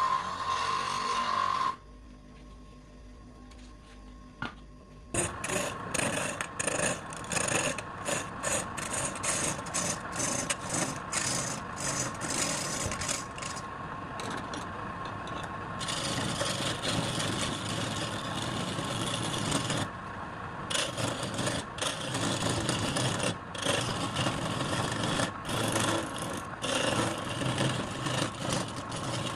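A wood lathe running with a steady whine while a turning tool works the spinning wood in scratchy, rasping passes that break off and start again many times. The tool is off the wood for a few seconds near the start.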